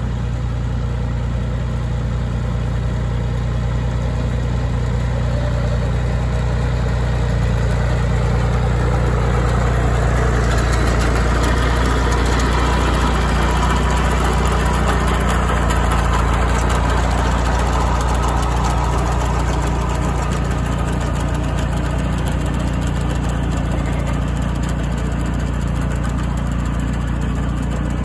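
John Deere tractor engine running steadily under load while driving a Massey Ferguson sickle-bar mower, whose reciprocating knife adds a fast mechanical clatter as it cuts grass, a little louder around the middle.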